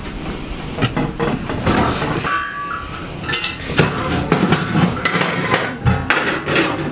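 A blanket-covered wooden baby cradle being rocked by hand on the floor, its wood knocking and clacking over and over in an uneven rhythm of about two knocks a second.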